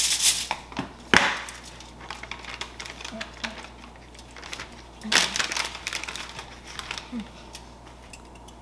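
Handling noises as pre-cut cookie dough squares are broken off their tray and set on a foil-lined baking sheet: foil crinkling and packaging rustling. There is a sharp knock about a second in and a longer burst of rustling about five seconds in.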